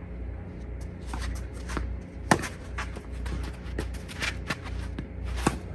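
Tennis rally sounds: two sharp pocks of a racket striking a tennis ball, about three seconds apart, with shoes scuffing and shuffling on the court between them.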